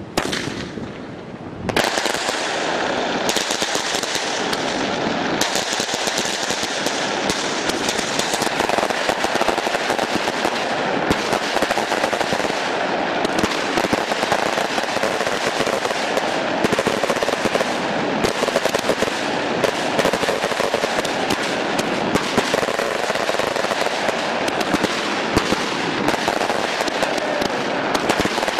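Dense, rapid crackling pops in an unbroken run, starting suddenly about two seconds in, of the kind a long string of firecrackers makes.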